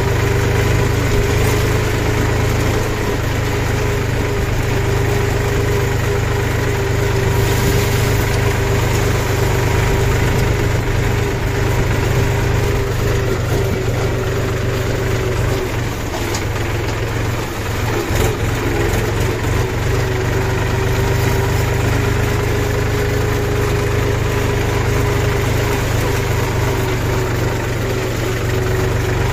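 Diesel farm tractor engine running at a steady speed, heard close up from the driver's seat as the tractor drives along a dirt track. Its note wavers and dips briefly a little past halfway.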